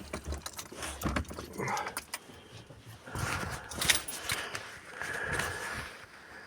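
Irregular light clinks, clicks and rustles of small things being handled, with a brief steady high tone about five seconds in.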